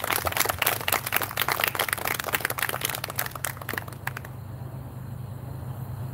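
Audience clapping at the end of a lecture, dying away about four seconds in, leaving a low steady hum in the room.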